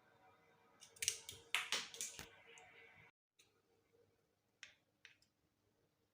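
Eggshell and bowl tapping and clicking as an egg is separated, white from yolk: a quick cluster of sharp taps about a second in, then a few faint clicks near the end.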